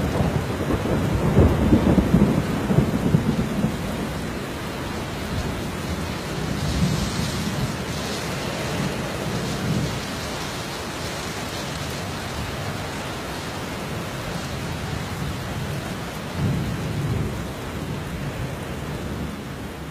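Rain falling steadily with low rolls of thunder, the strongest in the first few seconds and another about sixteen seconds in.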